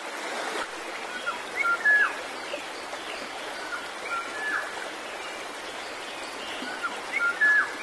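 Running water as a steady rushing hiss, with a bird's short phrase of clear whistled notes and quick downward slurs repeated three times, about every three seconds.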